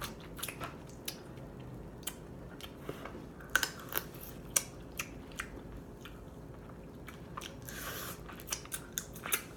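Crab legs being eaten close to the microphone: irregular small clicks and snaps of shell being picked apart, with wet chewing and mouth sounds.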